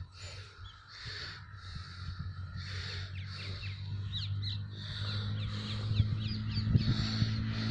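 Birds chirping in quick, short calls, over a steady low engine-like hum that grows louder through the second half.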